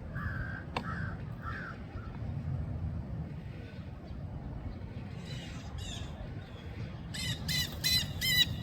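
Crow-type black birds calling: a few faint calls in the first second and a half, then a quick run of about five loud, harsh caws near the end, over a steady low rumble.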